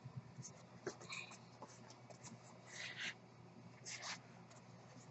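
Faint handling sounds of a smartphone's cardboard retail box being turned in the hands: small clicks and a few short scratchy rustles, over a low steady background hum.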